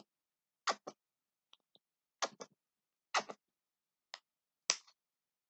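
Plastic tube of white paint being shaken and squeezed out onto a paper plate: four short, sharp sounds at uneven spacing, each quickly followed by a fainter one.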